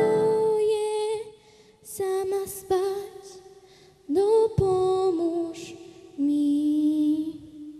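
A solo female voice sings slow, unaccompanied phrases over a live stage microphone. There are about four phrases of long held notes, one with an upward scoop, each separated by a short pause.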